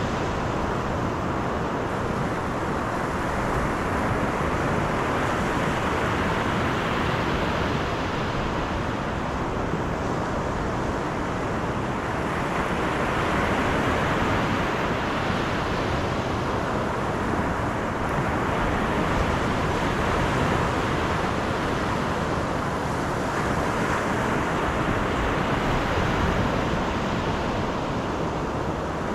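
Steady rush of tyre and wind noise from a car driving along a road, with no distinct events.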